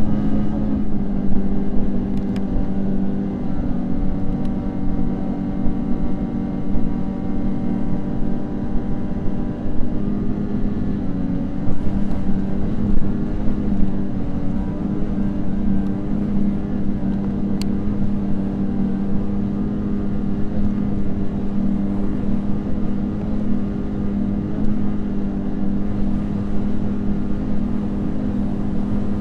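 Snowmobile engine running at a steady cruising speed, one steady drone that holds its pitch throughout.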